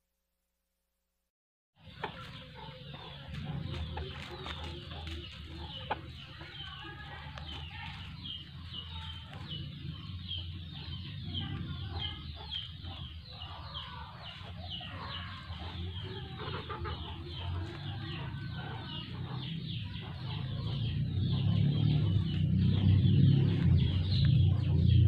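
A rooster clucking as it feeds, starting after about two seconds of silence, over a steady high chirping of birds or insects; the lower sounds grow louder near the end.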